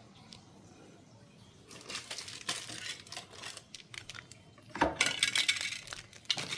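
Clinking and rattling of small hard objects being handled, starting about two seconds in, with the loudest clatter about five seconds in.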